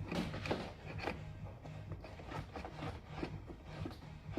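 Hands rummaging along van trim and seals in search of a cable: a run of short, irregular rustles, scrapes and taps.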